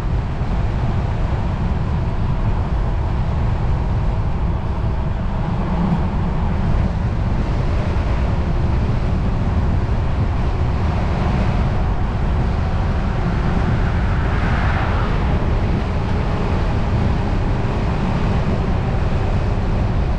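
Steady wind rushing over the microphone on a road bicycle coasting fast downhill at about 28 mph, not pedaling.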